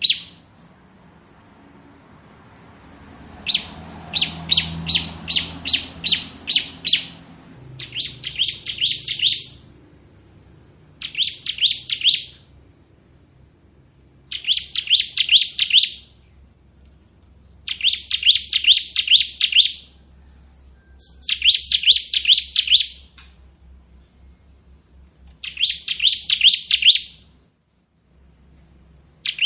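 Ciblek (prinia) singing its rapid 'ngebren' song: bursts of quick, high repeated notes, each one to two seconds long, coming about every three seconds.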